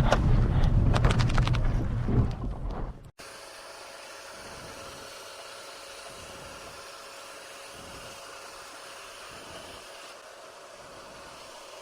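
BMW E46 325i's straight-six running loud under hard acceleration, with wind noise, fading and then cut off abruptly about three seconds in. After the cut there is only a faint steady hiss.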